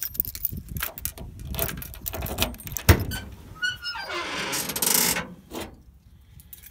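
Trunk of a 1970 Chevelle being opened: keys and latch rattling and clicking, a sharp thunk about three seconds in as the latch lets go and the lid swings up, then a stretch of rustling handling noise.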